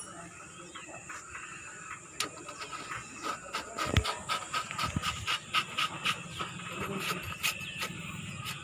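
Irregular sharp clicks and light metallic knocks of hand tools and wheel parts being worked, several a second, with one heavier knock about four seconds in.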